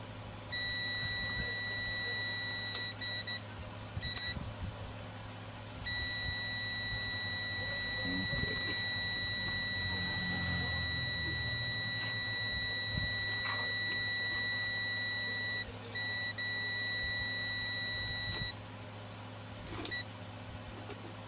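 Multimeter continuity beeper giving a steady high-pitched tone while its probes touch a rewound blender armature's commutator pins, the beep showing that the coil is connected through to those pins. It comes in several stretches: a few seconds at first, a brief blip, then one long beep of about ten seconds and a shorter one after a momentary break, over a faint low hum.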